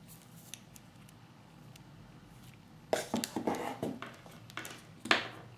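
Earphone cable and plastic earbuds handled and set down on a wooden desk: a few faint ticks, then a cluster of clicks and rattles about three seconds in, and one more brief clatter near the end.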